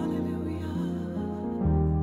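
Slow worship song: a woman singing over sustained keyboard chords, the chord changing about one and a half seconds in.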